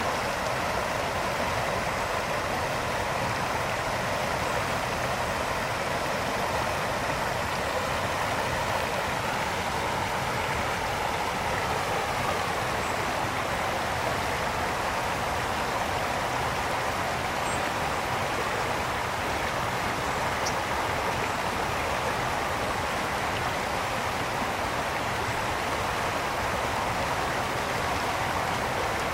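Mountain brook flowing over rocks, a steady, even rush of water.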